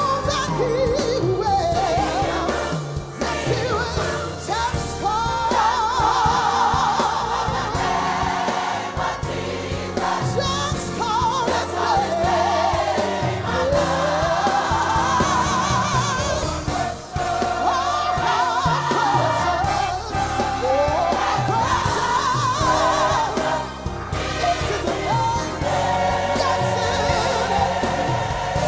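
Large gospel mass choir singing live behind a woman's lead voice, which winds and wavers through long runs over the choir's held chords and a steady low accompaniment.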